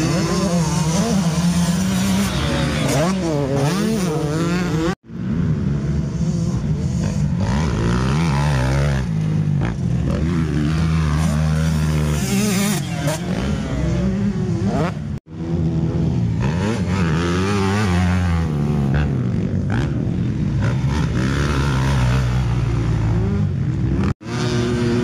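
Motocross dirt bike engines revving hard as the bikes ride the track, the pitch climbing and dropping again and again through the gears. The sound drops out abruptly three times, about five, fifteen and twenty-four seconds in.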